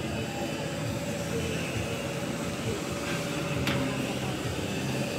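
Open-air fair and market street ambience: a steady low rumble of background noise with faint distant voices, and one sharp click about three and a half seconds in.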